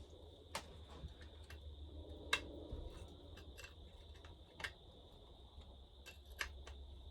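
Light, irregular metal clicks and clinks of hand tools on a chainsaw as its bolts are worked loose, about a dozen scattered ticks, over a faint steady high whine.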